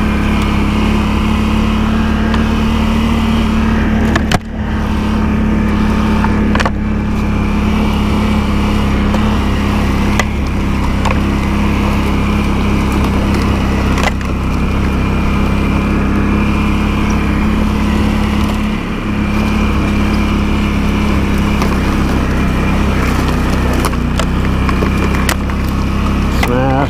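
ATV engine running steadily while under way, with branches snapping and cracking against the machine every few seconds as it pushes through overgrown brush.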